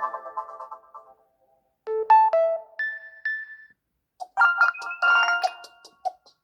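Realme C25s ringtones playing one after another: a keyboard-like melody fades out, and after a short pause a brief chime of a few clear notes sounds. About four seconds in, a faster tune of rapid notes begins.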